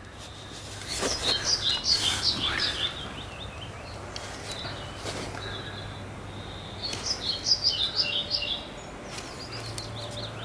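A small songbird singing in two bouts of quick, high chirping notes, about a second in and again around seven seconds in, over a steady outdoor background. There are a few faint clicks between the bouts.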